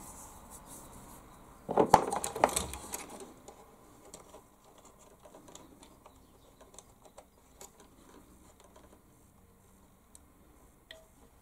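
Handling noise from a plastic 1/16 scale RC truck being picked up and moved about on a workbench: a burst of clattering knocks about two seconds in, then scattered faint taps.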